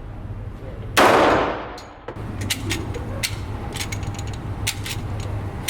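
A single handgun shot about a second in, loud and sudden, with an echoing tail that dies away over about a second. After it come a run of faint sharp clicks over a steady low hum.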